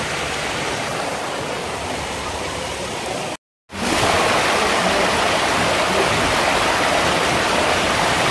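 Steady rush of water running down a waterslide flume; after a brief cut about three and a half seconds in it is louder.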